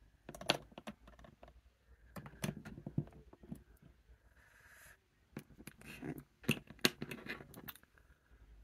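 Plastic Lego bricks clicking and clattering in small clusters as they are picked up, handled and pressed together, with a short rustle about halfway through.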